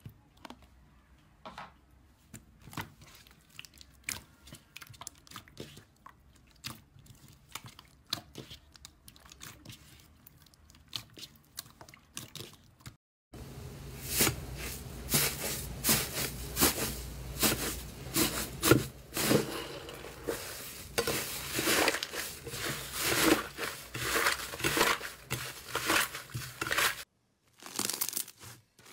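Slime being handled: at first faint sticky pops and clicks as soft slime is tipped out onto another slime. After a short break about halfway in come much louder crackling and tearing as fingers press and pull a thick, crumbly green 'tofu dregs' slime. Near the end comes crunching as foam-bead slime (floam) is squeezed.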